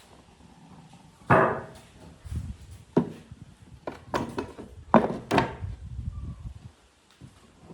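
Wooden boards knocking and clunking as they are handled, with about five irregular sharp knocks and low scraping and thudding between them.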